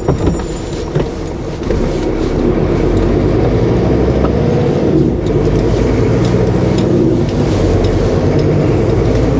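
Heavy goods vehicle's diesel engine pulling, getting louder about two seconds in and then running steadily.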